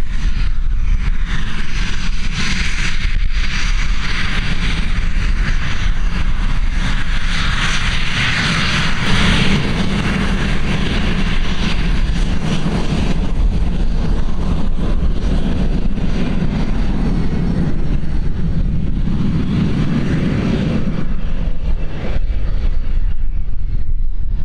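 Northrop F-5's twin General Electric J85 turbojets at taxi power: a steady jet whine over a heavy low rumble. The whine swells and fades as the jet rolls past.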